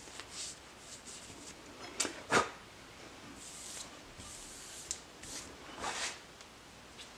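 A hand wiping across a granite surface plate in short swishes, with two light knocks about two seconds in.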